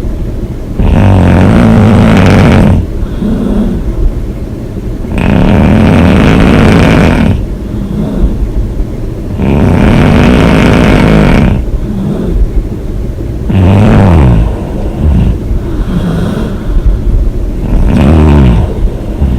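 A woman snoring loudly through an open mouth: a long, rough snore about every four seconds, five in all, with quieter breathing between them.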